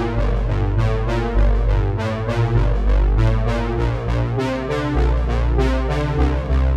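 Background music with synthesizer and keyboard over a steady beat.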